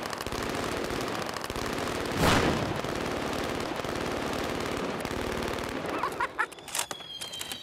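An AK-47, an MG-42 and a Thompson submachine gun firing full-auto together: a continuous rattle of rapid shots, loudest about two seconds in, thinning to scattered shots over the last two seconds. A thin high whine starts near the end.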